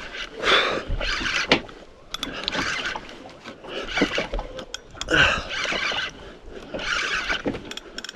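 Water slapping and sloshing against a boat's hull in repeated bursts, roughly one a second.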